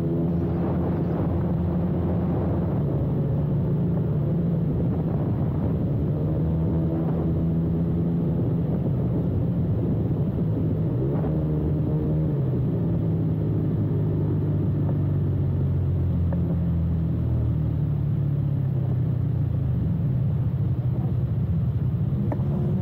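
Scooter engine running under way, its note holding steady and then dropping and climbing again with the throttle, over a low rumble of wind and road.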